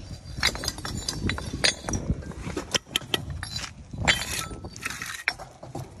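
Bricklayer's steel trowel working mortar: repeated sharp clicks and clinks as it strikes the tub and bricks, with a few short scrapes as it scoops and spreads the mortar.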